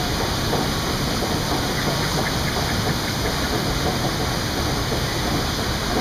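Steady mechanical rumble and hiss of a river-rapids raft ride's conveyor lift carrying a round raft uphill.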